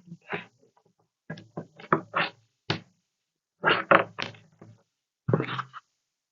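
A series of sharp knocks and clicks, several grouped close together, from hard plastic laptop parts being handled and pressed into place. The loudest come about two and four seconds in, with a last one near the end.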